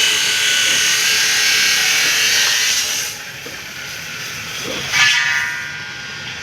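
A power tool running with a high whine, loud for about three seconds, then quieter, with a brief surge about five seconds in.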